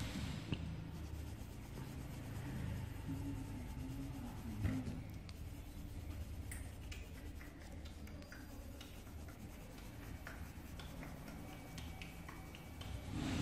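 Pencil lead scratching over paper as it traces the outlines of a drawing, faint and irregular, over a low steady hum.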